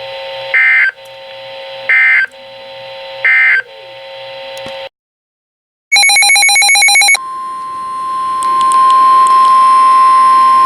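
Emergency Alert System data bursts over weather radio: three short screeching digital bursts about 1.4 seconds apart over radio hiss, marking the end of the warning message. After a second of silence comes about a second of rapid pulsing electronic beeping, then the steady single-pitch 1050 Hz warning alarm tone that opens the next alert.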